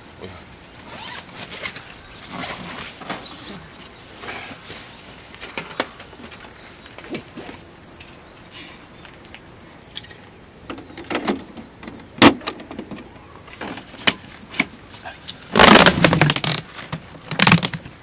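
Handling noises from unpacking an EcoFlow Wave 2 portable air conditioner from its fabric carry bag and fitting its flexible exhaust hose: scattered rustles and knocks, a sharp click past the middle, and the loudest rustling thump near the end. A steady high insect drone runs underneath.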